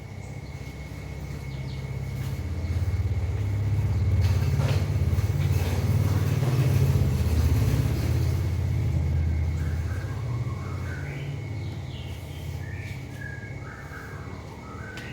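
A low rumble that swells and then fades over several seconds, with short bird chirps near the end.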